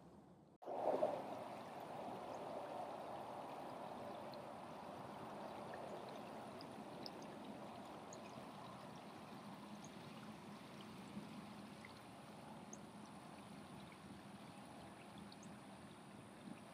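Steady rush of flowing floodwater, an even hiss that starts abruptly about half a second in and slowly fades.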